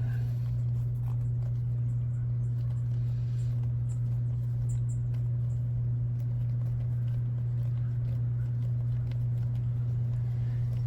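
A steady low hum, with faint small clicks and handling noises of hands working on RC wheel parts.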